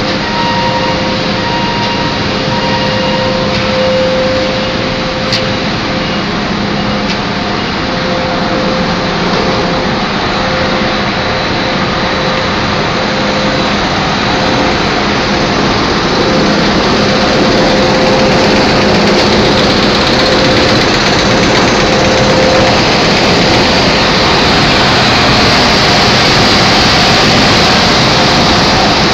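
Steady, loud din of machinery running on a cardboard-box factory floor, with a few steady tones over a continuous rush of noise that grows a little louder about halfway through.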